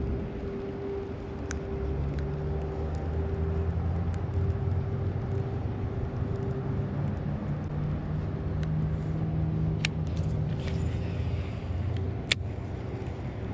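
Steady low motor rumble with a constant faint hum above it, and a few sharp ticks.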